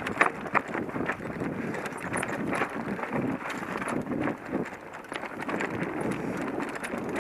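Mountain bike riding over a rocky trail: steady tyre noise on stones and gravel, with irregular knocks and rattles as the wheels hit rocks, sharpest about half a second in.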